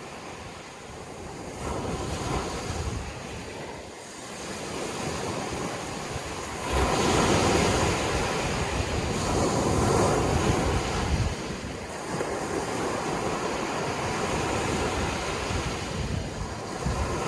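Sea waves washing onto the shore, swelling and ebbing, with the biggest surge about seven seconds in. Wind buffets the microphone.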